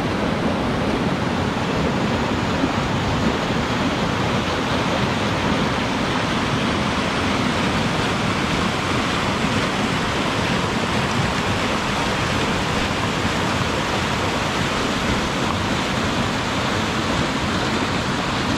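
River rapids: water shooting through narrow gaps between boulders, a steady rush of whitewater.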